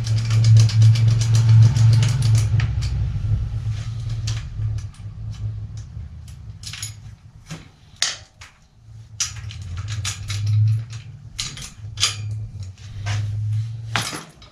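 A low, steady motor-like hum, loudest in the first few seconds and coming and going after that. From about four seconds in, irregular sharp clicks and knocks of hands and tools working on a bicycle wheel and tyre.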